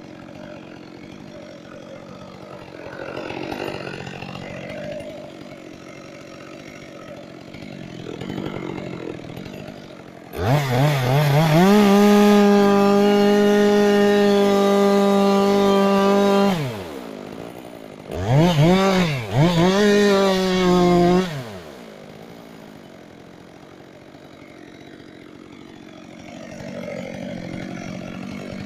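Chainsaw running quietly, then about ten seconds in revved up to full throttle, holding a steady high note for about six seconds. It drops off, then is revved up twice more in quick succession before falling back to a low run.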